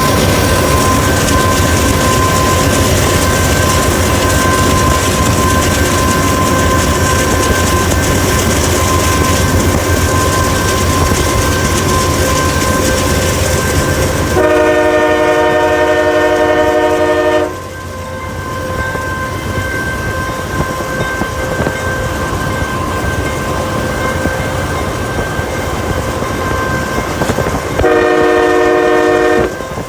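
Train running on the rails with a loud rumble and clatter that eases about halfway through. Its air horn sounds twice: a blast of about three seconds around the middle and a shorter one near the end.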